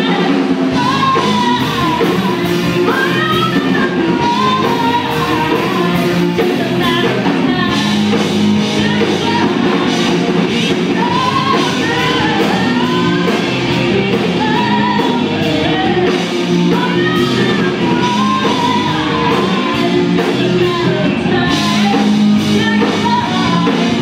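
Live rock band playing with singing: electric guitars, bass and drums under a sung melody, with a steady drum beat.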